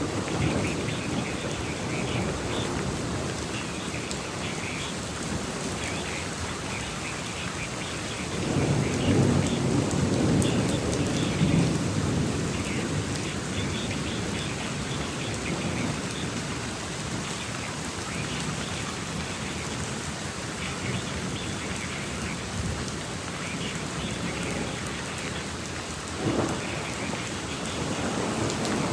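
Steady rain falling during a thunderstorm, with a rumble of thunder swelling about eight seconds in and lasting a few seconds, and a short, sharper burst near the end.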